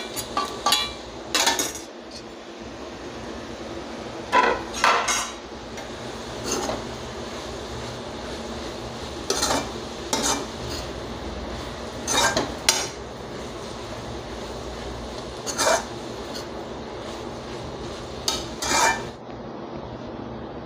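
Steel spoon scraping and clanking against an aluminium kadai while stirring cooked amaranth leaves, a sharp metallic stroke every second or two, over a steady background hiss.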